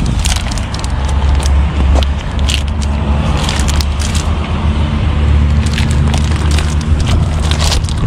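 Plastic bag crinkling and rustling in a cardboard box as it is handled, in many short crackles, over a steady low rumble.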